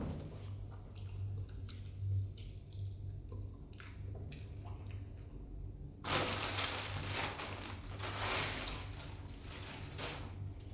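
Food preparation: scattered small clicks and wet squishing sounds, then about six seconds in a loud hiss that lasts about four seconds before dying down, over a steady low hum.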